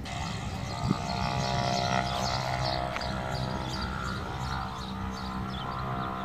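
Single turboprop engine and propeller of a Cessna 208B Grand Caravan at takeoff power, a steady drone with a whine, heard from beside the runway. A brief knock sounds about a second in.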